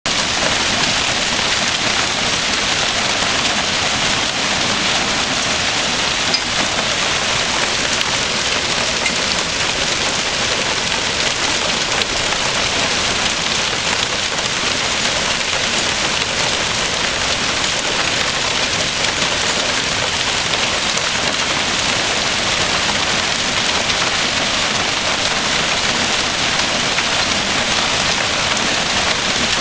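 Hail falling hard and steadily: a dense, even rush of stones hitting the ground and surfaces, with no let-up.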